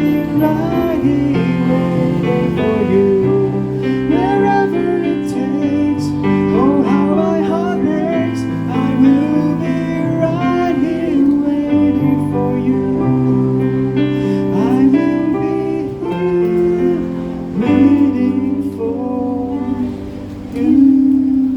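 Live singing over strummed acoustic guitar accompaniment, a pop ballad being performed.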